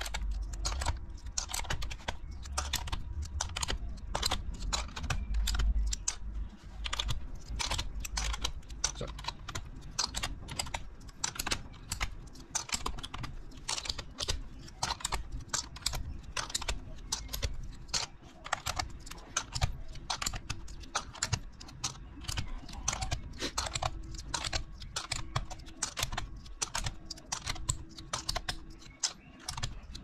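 Plastic keycaps being pulled off a Corsair K95 RGB Platinum mechanical keyboard's switches one after another: a rapid, irregular clatter of small plastic clicks as caps pop off the stems and are dropped on the pile. There is some low thudding in the first six seconds.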